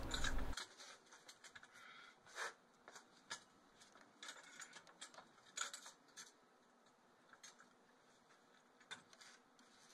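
Faint, scattered clicks and light clinks: the steel tripod legs of a post puller and their D-ring connectors being handled.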